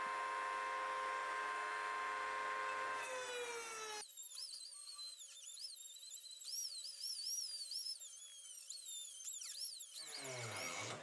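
Rotary tool with a thin cut-off disc cutting a steel bolt. It starts as a steady high whine that drops in pitch about three seconds in as the disc bites. It then gives a wavering high-pitched grind of the disc through the metal, and near the end the motor's whine rises again.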